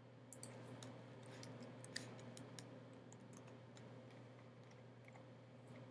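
Faint, irregular clicking of computer keys and mouse clicks, thickest in the first half, over a low steady hum.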